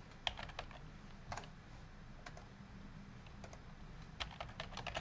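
Computer keyboard keystrokes: faint, scattered single key presses, then a quick run of them near the end.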